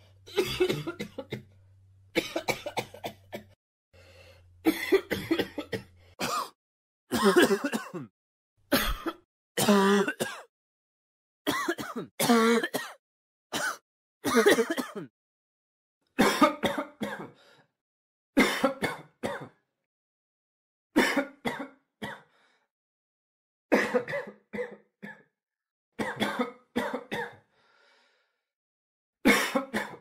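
A person coughing and clearing their throat over and over: about a dozen short bouts, each a second or so long, with brief pauses between them.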